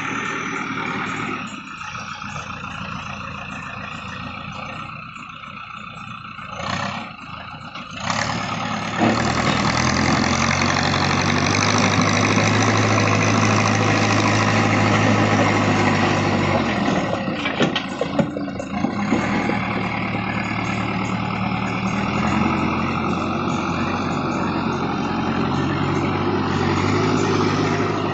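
Backhoe loader's diesel engine running, revving up under load about nine seconds in and holding high for several seconds before settling back to a lower, steady run.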